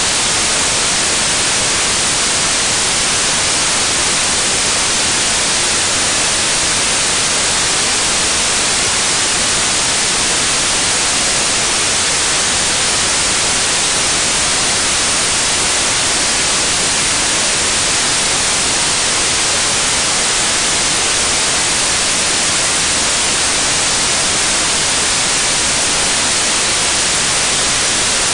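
Loud, steady static hiss, even and unchanging throughout, with no engine or drilling sound standing out from it.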